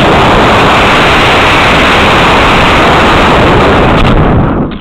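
Model rocket climbing on a C6-3 black-powder motor, heard through a camera mounted on the rocket: a loud, steady rushing noise of motor thrust and air streaming past the body, with no pitch to it, that begins to fade near the end.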